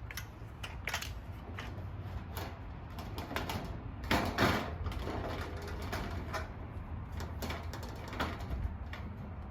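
Scattered clicks and knocks of a gazebo roof panel being handled and worked into the roof frame, with a short scraping rustle about four seconds in.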